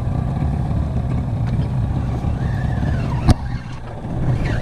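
Steady low rumble of wind and boat noise while a Penn spinning reel is cranked to retrieve line, with one sharp click about three seconds in.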